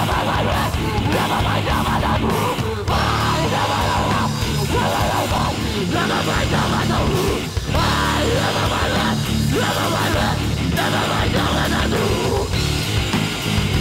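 Live death/nu-metal hardcore band playing heavy, distorted guitar-driven music, with harsh screamed vocals into the microphone.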